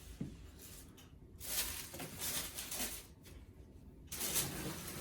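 Packaging rustling as it is handled, in two bursts: one about a second and a half in lasting about a second and a half, and a shorter one near the end.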